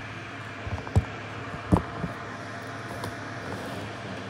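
Steady room hum with a few dull bumps from the recording device being handled; the loudest come about a second in and just before two seconds.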